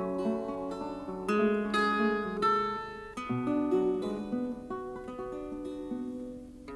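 Instrumental music on a plucked string instrument, guitar-like, playing a run of picked notes and chords that ring on.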